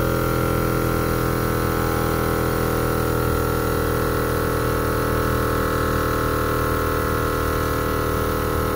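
Maxtrac 160 L/min 12-volt portable air compressor running steadily under load, its motor and piston pump giving an even hum as it inflates a flat tyre through its coiled hose. Not very noisy.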